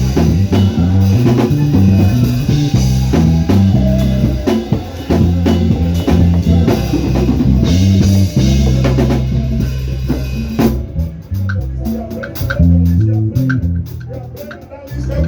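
Live band praise music: a driving bass-guitar line with drum kit and guitar, the full band thinning out to a lighter bass line and sparser drum hits from about eleven seconds in.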